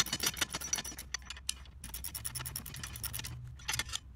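Socket ratchet clicking in quick runs as it tightens a nut onto a bolt of the steel wheel hoe frame, with short pauses between strokes.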